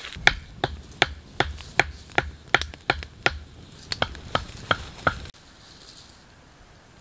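A wooden stake being driven into the ground with a wooden club: a steady run of sharp wood-on-wood knocks, about two and a half a second, that stops abruptly about five seconds in.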